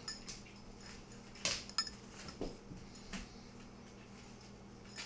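Dogs' claws clicking and scrabbling on a tile floor, with light metallic clinks of collar tags, as a German shepherd and a corgi play. The clicks and clinks are scattered and irregular, a cluster of louder ones a little past a second and a half in.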